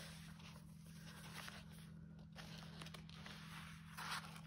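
Faint rustling of the art journal's paper and card pages as they are turned and handled, with a louder rustle near the end, over a steady low hum.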